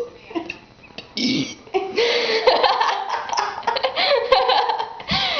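A woman burping the letters of the alphabet: a few short burps, then a long, near-unbroken run of belched letters in the second half.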